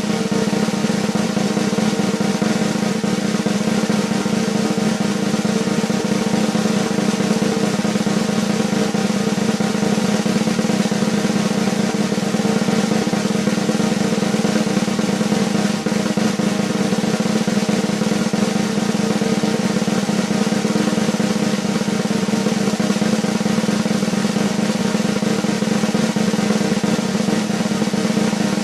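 Sustained snare drum roll, fast and even, running without a break or accent.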